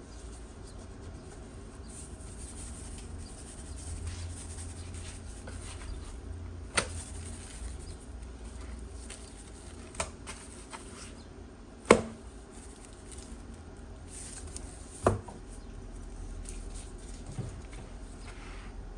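Kitchen handling sounds while fish is seasoned: five sharp knocks of containers or utensils set down on a counter, the loudest about two-thirds of the way through, over a low steady hum.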